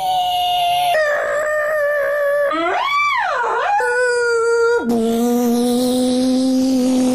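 People in turn imitating a police siren with their voices: sustained wailing tones, one swooping up and down, then a long held note near the end.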